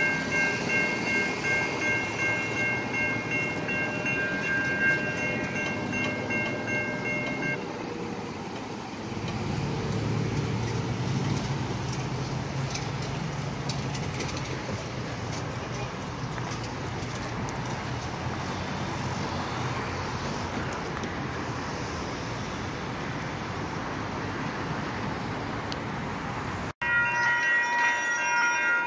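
Railroad level-crossing warning bell ringing in even pulses, about two a second, stopping about seven and a half seconds in; a steady low rumble with hiss follows. Near the end, after a sudden break, a pulsing ringing with several tones starts again.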